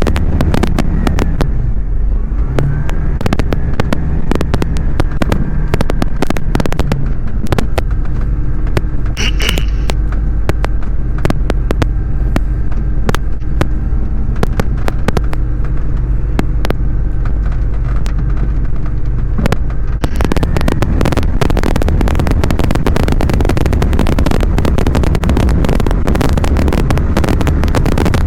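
Small aeroplane's piston engine running, a steady drone heard in the cockpit with many sharp crackling clicks over it. About 20 seconds in it grows louder and fuller, as fits power coming up just after the takeoff clearance.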